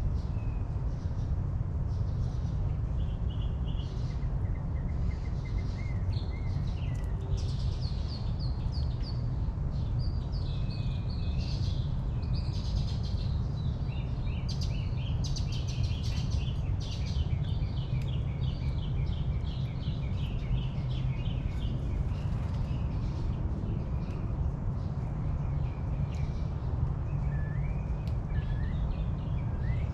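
Several backyard birds singing and chirping in overlapping short trills and rapid repeated notes, busiest through the middle, over a steady low rumble.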